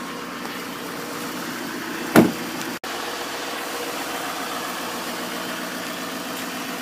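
Chevrolet Duramax 6.6-litre V8 turbodiesel idling steadily. About two seconds in, a truck door shuts with a single loud thump.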